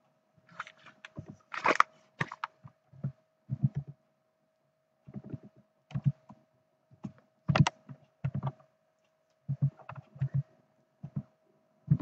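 Computer keyboard being typed on: irregular key presses with a few louder clacks, over a faint steady hum.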